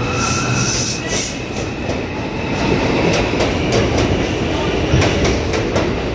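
A New York City Subway R142-series train pulls out along the platform and picks up speed. It runs with a steady rumble and a steady high whine, and from about halfway through, clacks of the wheels over rail joints come quicker and quicker.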